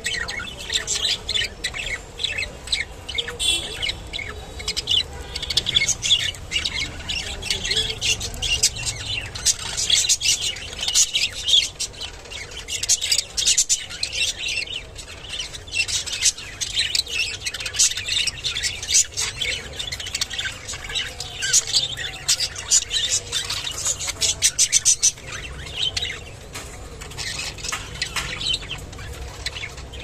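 Budgerigars chattering and chirping: a dense, unbroken stream of short, high calls.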